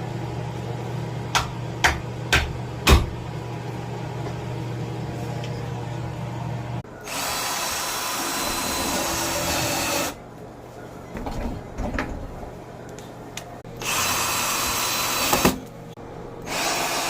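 Cordless drill running in three bursts: about three seconds, then a second and a half, then a short one near the end. A few sharp clicks come before the first burst.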